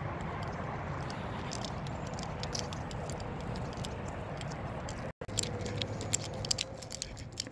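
Footsteps walking on a gritty paved path, with rustling and small clicks from a hand-held phone, over a steady outdoor background. The sound cuts out completely for a moment about five seconds in.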